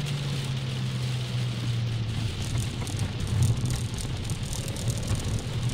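Car engine and tyre noise on a wet track, heard from inside the cabin. The engine note drops in pitch over the first two seconds as the car eases off, then holds steady.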